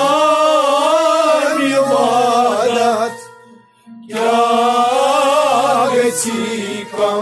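Kashmiri Sufi singing: a solo male voice sings two long, wavering phrases, with a short break about three and a half seconds in, over a faint steady accompaniment.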